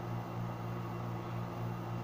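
Steady low hum with a faint hiss, the background noise of the recording.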